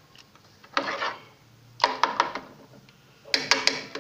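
A metal spoon scraping and knocking against a stainless steel pot while stirring rice pudding, in three short bursts about a second apart, with sharp clicks in the later two.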